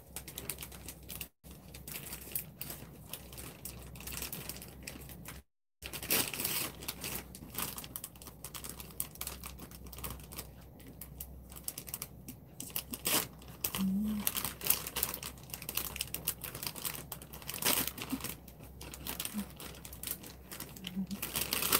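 Clear plastic packaging crinkling and rustling as figure parts are unwrapped from plastic bags, with many small irregular clicks and taps of plastic pieces. The sound cuts out briefly twice in the first six seconds.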